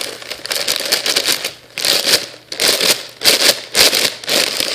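Clear plastic bag of cereal being shaken by hand, the plastic crinkling in irregular bursts with brief lulls.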